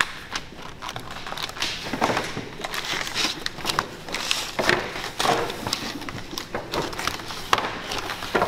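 Irregular clicks and light clatter of clear plastic sweet cases being picked off perforated metal trays and set down into gift boxes by gloved hands.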